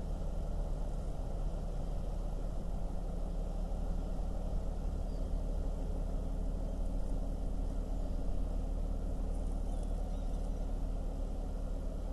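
A steady low engine drone from the freighter's two six-cylinder Rolls-Royce Bergen diesels, with several low hum tones held steady and no change in pitch.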